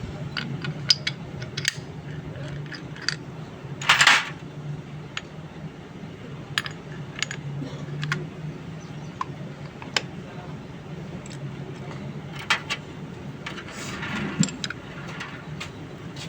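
Metal parts and hand tools clinking and tapping at irregular intervals over a steady low hum, with a short louder rasping noise about four seconds in.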